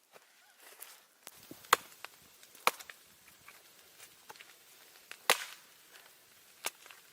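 Wood being chopped: four loud, sharp strikes at uneven intervals, with lighter knocks between.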